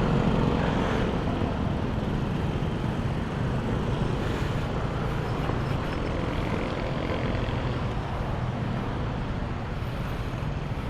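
Motor scooter running steadily on the move, with road and wind noise around it and a low, steady engine hum underneath.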